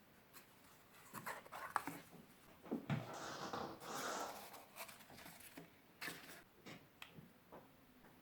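Hands working cardboard and small craft parts: scattered light taps and clicks, with a longer scraping sound starting about three seconds in and lasting about a second and a half.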